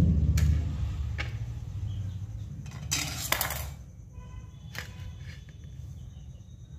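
A steel kitchen knife cutting a soft chocolate sponge cake on a plate, the blade clicking against the plate a few times and scraping it loudest about three seconds in. A low rumble of handling at the very start.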